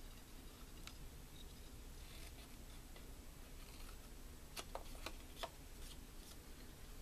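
Small craft snips cutting cardstock: faint, scattered snips of the blades, with a few sharper clicks about two-thirds of the way through.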